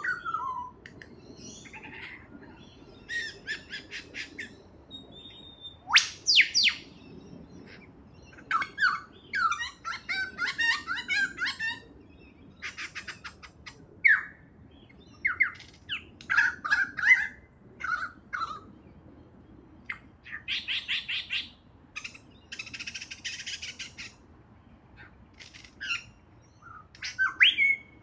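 Superb lyrebird singing a varied song of separate phrases: rapid runs of evenly spaced notes, sweeping whistles that rise and fall, and a few loud falling whistles, with short pauses between phrases.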